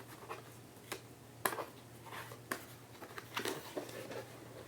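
A figurine's box and packaging being opened and handled: a series of light clicks, taps and scrapes, the sharpest about a second and a half in.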